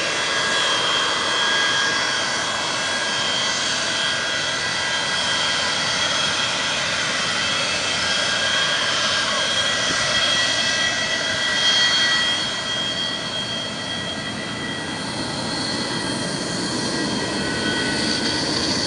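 Boeing 737-200's Pratt & Whitney JT8D jet engines running at low thrust as the airliner rolls slowly past, a steady whine of several held high tones over a rushing noise. It grows louder again near the end as an engine comes close.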